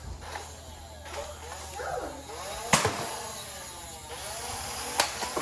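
Faint children's voices in the background, with two sharp clicks, one near the middle and one near the end.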